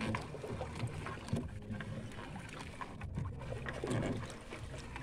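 Water sloshing and lapping against the hull of a small outrigger fishing boat, with scattered light knocks and handling noise.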